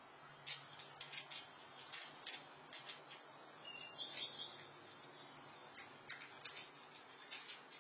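Small birds chirping: a scatter of short, high chirps with a longer run of song about three to four and a half seconds in, faint over a steady low hum.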